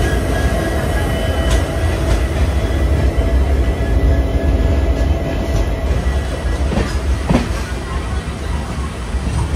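Train running on the rails: a steady low rumble with faint thin wheel-squeal tones and a couple of sharp clacks about seven seconds in.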